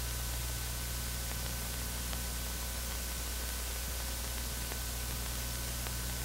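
Steady hiss and low mains hum of an old film soundtrack, with a thin steady whistle and a few faint ticks of crackle.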